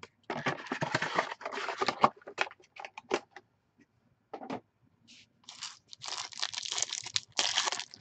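Cardboard and foil packaging of a trading-card box being handled: the inner box slid out of its sleeve and a foil-wrapped card pack crinkled, in bursts of rustling with a few clicks. The crinkling is densest over the last couple of seconds.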